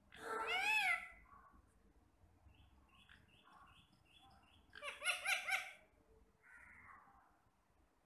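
Indian ringneck parakeet calling: a loud burst of arching, screechy notes near the start, a few short high chirps, then another loud burst of rapid arching notes about halfway through, and a softer call near the end.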